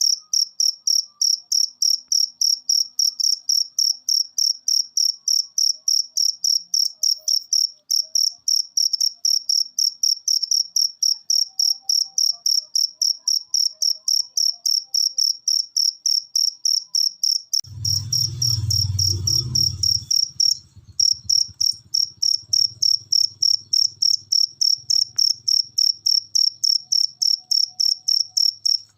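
A cricket chirping steadily, an even run of high, same-pitched chirps at about three or four a second. About two-thirds of the way through, a low rumble lasts about two seconds under the chirps.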